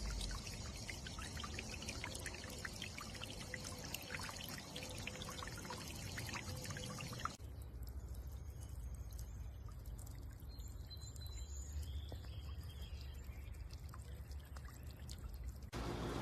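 Solar bird-bath fountain spraying water that splashes and trickles into the basin, with the sound changing in character about seven seconds in.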